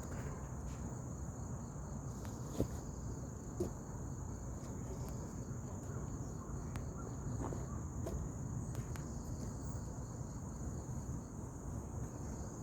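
Crickets trilling steadily in a high, continuous chorus, with a low rumble underneath and two sharp taps a few seconds in.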